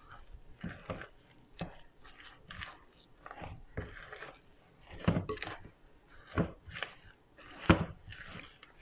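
A utensil stirring stiff, crumbly coconut macaroon dough in a glass bowl: irregular squishing and scraping strokes, roughly one or two a second, the loudest about five and seven and a half seconds in. The dough still holds lumps of unsoftened butter.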